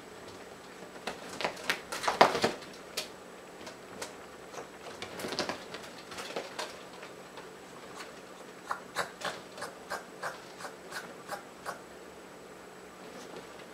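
A Bengal kitten scrambling on a leather sofa and against vertical blinds while stalking a bug: scattered scrapes, rustles and taps. In the second half there is an evenly spaced run of short clicks, about three a second.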